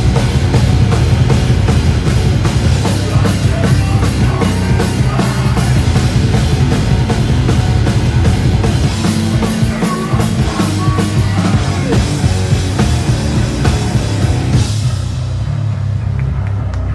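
Live rock band playing loud, with pounding drum kit and crashing cymbals over low heavy bass and guitar. About fifteen seconds in, the drums and cymbals stop and only low ringing notes carry on as the song winds down.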